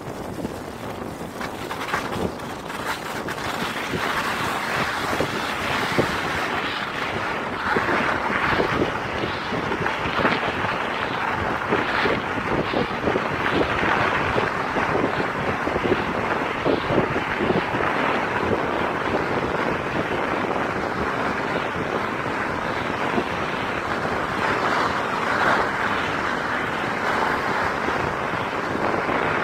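Wind rushing over the microphone from fast movement along a snowy track, a steady rough roar broken by many small crackles.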